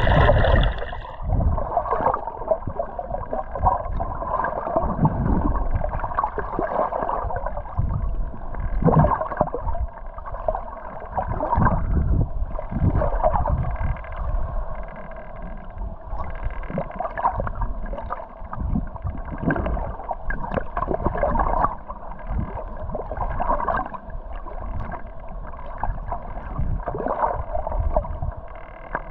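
Muffled water sloshing and gurgling picked up through an underwater camera housing, with irregular low surges of water movement.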